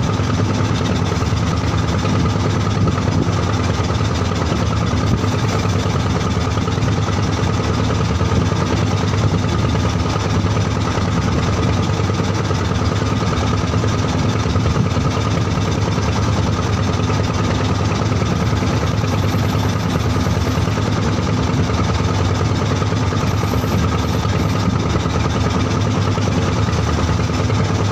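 Wooden fishing boat's engine running steadily, a constant low drone that neither rises nor falls.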